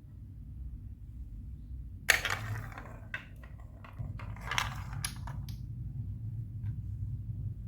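Glass marbles rolling along Lego Duplo plastic block tracks with a low rumble, clattering and clicking against the blocks, with a sharp knock about two seconds in followed by a burst of rattling clicks.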